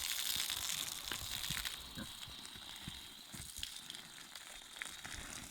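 Garden hose spraying water with a hiss that eases off about two seconds in, with scattered clicks and soft low thumps.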